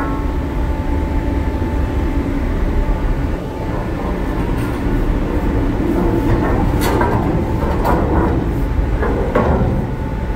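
A long rusted steel air-line pipe being slid down a steel stairway, scraping and clanking against the metal treads and rails, with several sharp metallic knocks in the second half. A steady low rumble runs underneath.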